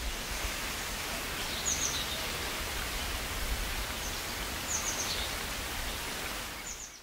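Outdoor nature ambience: a steady, even rushing hiss with a few faint, brief high bird chirps, about three times, that fades out at the end.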